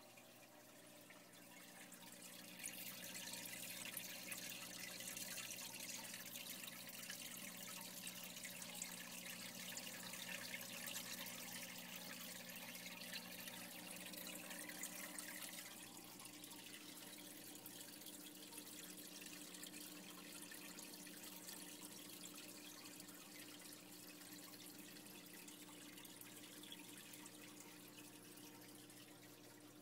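Faint trickling and splashing of water circulating in a reef aquarium, over a low steady hum. The water sound grows louder a few seconds in and eases off about halfway through.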